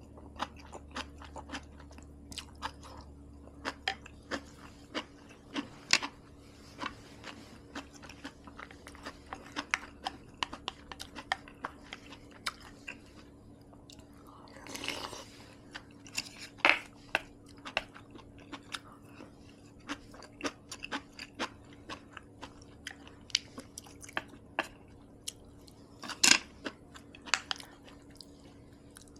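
Close-miked chewing of a meal of rice, kimchi and seaweed soup: irregular wet mouth clicks and occasional crunches, with a softer drawn-out noisy sound about halfway through.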